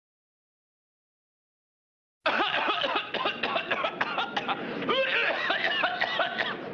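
Dead silence for about two seconds, then a sudden outburst of loud laughter that carries on to the end.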